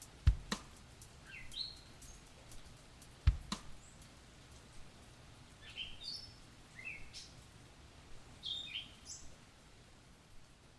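Small birds chirping in short rising calls, several times over. A sharp knock just after the start and another about three seconds later are the loudest sounds.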